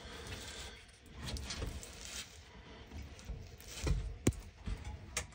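Faint scraping and handling noise as debris is cleared from a return-air duct opening with a hand tool, with a few sharp clicks and soft knocks.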